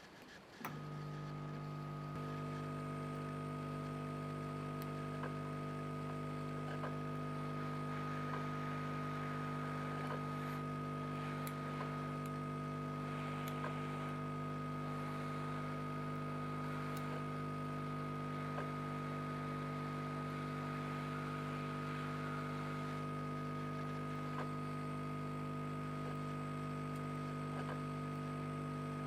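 A steady electric hum switches on about half a second in and holds level, with faint clicks and light taps over it.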